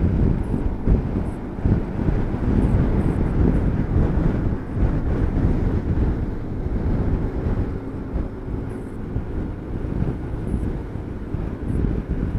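Wind buffeting the microphone of a scooter on the move, over the scooter's engine and road noise; the rushing rises and falls in gusts throughout.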